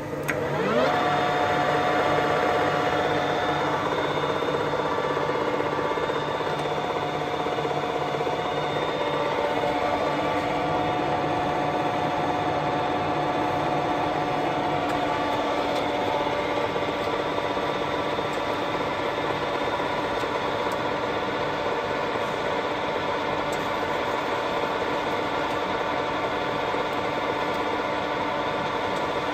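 Baoji CS6250B lathe spindle spinning up, its pitch rising over about the first second, then running steadily with the even hum and whine of the geared headstock.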